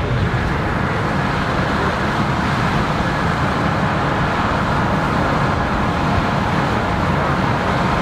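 Combine harvester working through standing corn: steady engine and threshing machinery noise, heavy in the low end.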